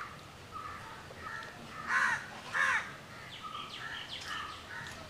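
Crows cawing: two louder caws about two seconds in, with fainter repeated calls around them.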